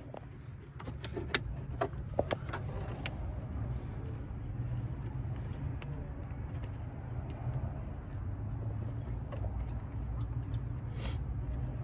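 Light clicks and knocks of parts and tools being handled, several in the first few seconds, over a low steady rumble, with a short hiss near the end.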